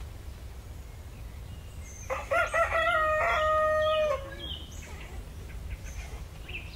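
A rooster crowing once, a cock-a-doodle-doo of a few short notes ending in a long held note, about two seconds in, over a faint low rumble.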